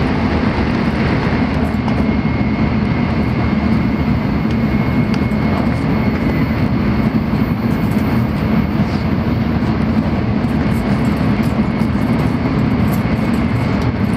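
Shinkansen bullet train running at speed, heard inside the passenger car: a steady, unbroken running noise with a faint thin high tone held through most of it.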